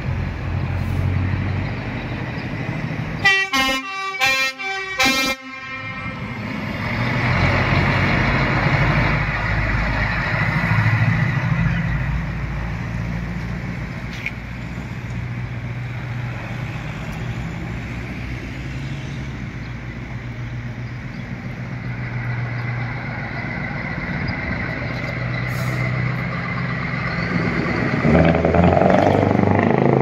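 Scania 164L V8 truck engine with a straight-through "Greek pipe" exhaust running steadily, getting louder twice as it pulls and then passes close near the end. About three seconds in, a train horn on the truck gives several short blasts lasting about two seconds.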